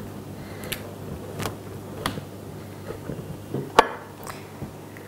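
Scattered light knocks and clinks of kitchenware: a metal box grater in a plastic bowl, and blocks of cheese handled on a ceramic plate. One sharper clack comes a little before four seconds in.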